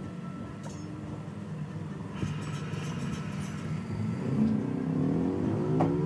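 A motor vehicle's engine running as a steady low rumble, rising in pitch over the last couple of seconds.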